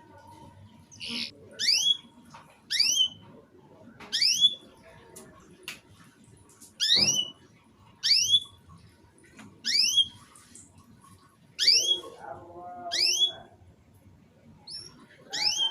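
Domestic canary singing in short, broken bursts. Each burst is a quick pair of rising whistled chirps, repeated about every second and a half.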